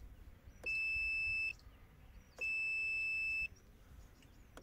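Multimeter beeper sounding twice, each a steady high-pitched beep about a second long.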